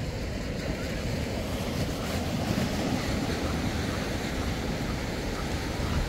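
Ocean waves washing onto the beach, a steady surf rush, with wind buffeting the microphone.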